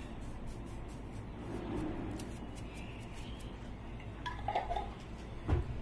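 Kitchen utensils clinking: a few short ringing clinks of metal or glass about four and a half seconds in, then a heavier knock near the end, over a steady low hum.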